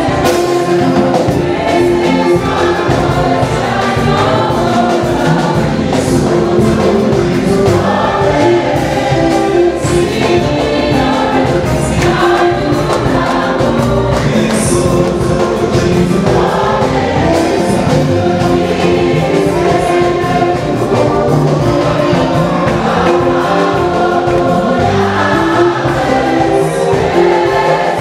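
A gospel choir singing a song with instrumental backing, at a steady loud level.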